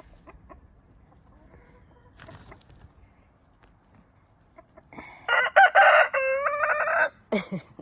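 Rooster crowing once, a loud call about two seconds long starting about five seconds in, after a few soft clucks; short clucking calls follow.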